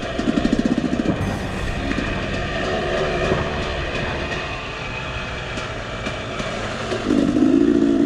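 Husqvarna TE250 enduro motorcycle engine running while riding, with a pulsing burst of revs about half a second in and a louder rev-up near the end.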